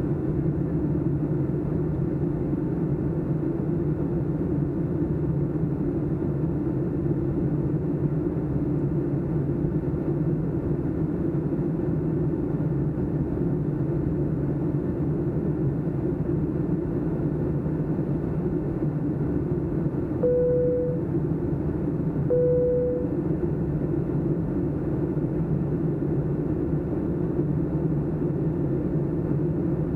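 Steady cabin drone of a Boeing 757-200 in flight, its Rolls-Royce RB211 engines and airflow heard from a window seat. About twenty seconds in, two short chime tones sound about two seconds apart.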